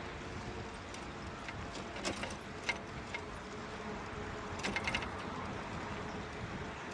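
Steady city street traffic noise heard from a moving bicycle. The bicycle gives a few sharp clicks and rattles, with a quick cluster of rattles about five seconds in.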